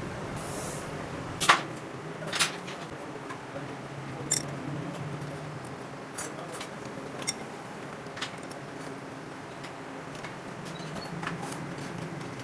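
Sharp metallic clicks and clinks from tools and engine parts being handled during motorcycle engine disassembly, about eight separate knocks at uneven intervals, the loudest two about a second and a half and two and a half seconds in, over a steady low hum.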